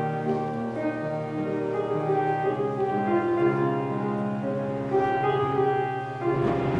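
Organ playing slow, sustained chords with a moving melody line. The notes are held steady rather than fading, and change about every second.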